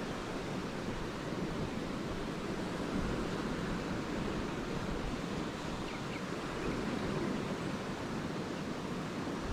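Lake Erie waves washing steadily onto the beach, a continuous even surf sound.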